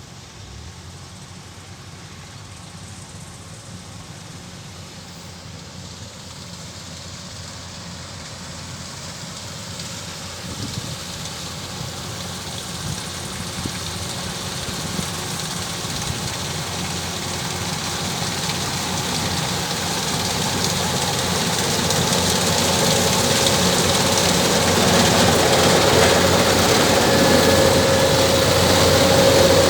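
Kubota DC-105X rice combine harvester's diesel engine and threshing machinery running steadily, growing gradually louder throughout.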